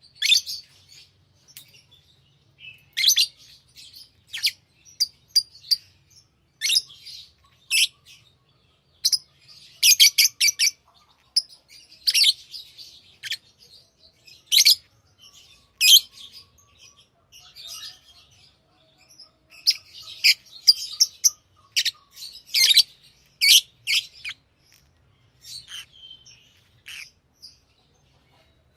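Pet lovebirds chirping: short, sharp, high-pitched calls in irregular clusters, several in quick succession at the busiest moments, with brief gaps between.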